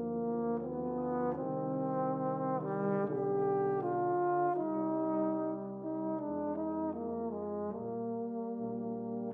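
Brass instruments playing together in sustained chords that move to a new chord about every second.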